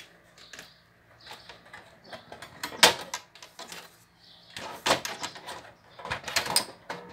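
Sheet-metal top cover of a Sony CDP-395 CD player being put back on: scattered knocks and rattles, the sharpest about three seconds in, with more clatter around five and six seconds in.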